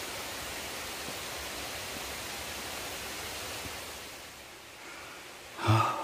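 Steady rushing of a rain-swollen mountain stream, easing to a quieter hiss about four seconds in. Just before the end, a person makes a short, loud vocal sound.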